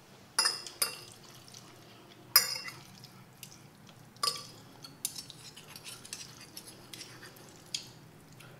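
Metal fork and spoon clinking and scraping on a ceramic plate while gathering instant noodles. A few sharp, ringing clinks come in the first half, the loudest about two and a half seconds in, followed by lighter taps and scrapes.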